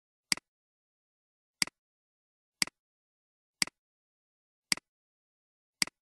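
Computer mouse clicks, six in all at about one a second, each a sharp click with a softer second tick just after it. The clicks work a document viewer's next-page button, each one turning a page.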